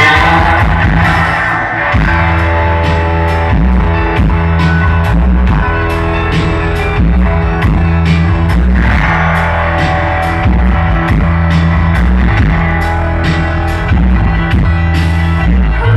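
A live rock band playing an instrumental passage: electric guitar, bass guitar and drum kit, with drum hits about twice a second under steady held chords.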